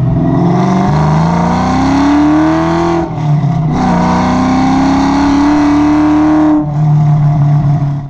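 Car engine accelerating hard under load, its pitch climbing steadily. About 3 seconds in it breaks and drops for an upshift, then climbs again, and it drops once more near the end.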